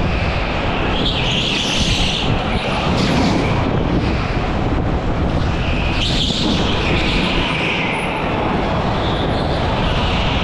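Go-kart running at racing speed on an indoor track, heard onboard with wind rushing over the microphone. A higher hiss swells and fades about a second in, again around six seconds in, and near the end.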